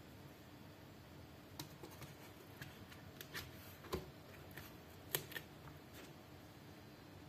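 Faint scattered clicks and light taps of knives being handled in their box: the chef's knife set back into its slot in the box insert and a hand touching the knives, with the sharpest knocks about four and five seconds in.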